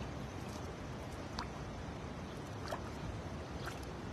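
Steady low rushing background noise with a few faint, short clicks and rustles as a fishing net is handled and fish are worked free of the mesh.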